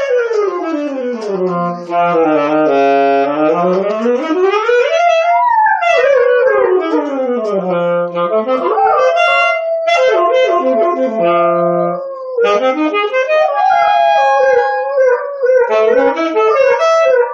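A saxophone plays long sliding and held notes, swooping low and back up, while a golden retriever howls along. Near the end there is a wavering, long-held note.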